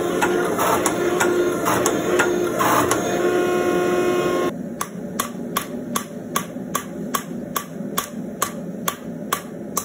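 A hydraulic forging press's pump motor running while it squeezes a red-hot steel bar. After about four and a half seconds it gives way to a hand hammer striking hot steel on an anvil in brisk, even blows, about three a second.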